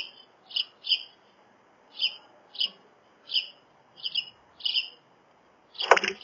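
A small songbird giving a run of short, evenly spaced chirps, about two a second. Near the end comes a loud knock.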